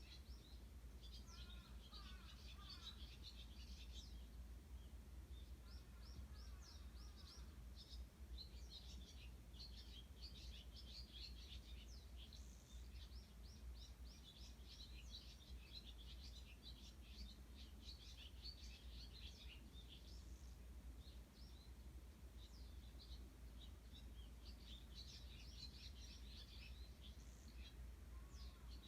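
Faint, busy chorus of Eurasian tree sparrows chirping continuously. Crows call a few times lower down: near the start, around six seconds in and at the very end. A steady low background rumble runs underneath.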